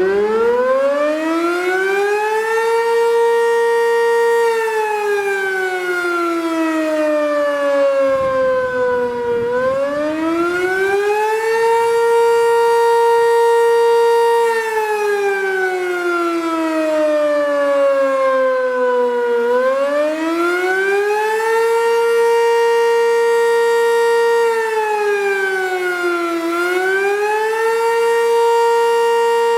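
Sentry 10V2T dual-tone, double-stacked outdoor warning siren winding up, then sounding two tones together as it falls and rises in slow wails about every ten seconds, with a shorter, shallower dip near the end.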